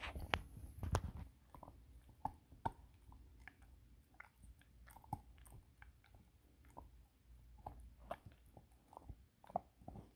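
Golden retriever puppy chewing a Whimzees grain-free alligator dental chew: irregular soft crunches and clicks of teeth on the chew, louder in the first second and fainter after.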